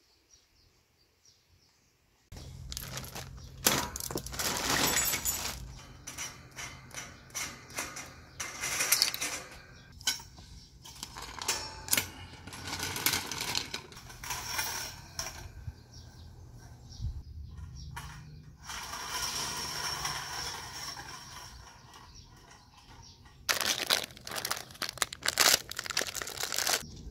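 Chrome wire shelving being assembled: after about two seconds of quiet, repeated metallic clanks, clinks and rattles of wire shelves and posts being handled and knocked together. Near the end, plastic bags of shelf hardware crinkle as they are handled.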